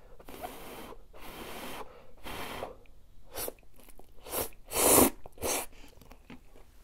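A person slurping instant cup ramen noodles, sucked in with a string of noisy slurps. There are three longer slurps in the first three seconds, then several shorter, sharper ones, the loudest about five seconds in.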